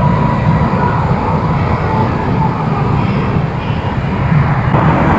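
Steady road noise heard from a moving bicycle: wind rumbling on the camera's microphone, mixed with the engines and tyres of surrounding city traffic.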